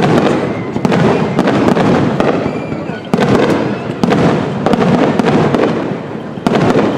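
Aerial firework shells bursting in quick succession: repeated sharp bangs with a dense crackling rumble between them, with fresh loud bangs about three seconds in and again near the end.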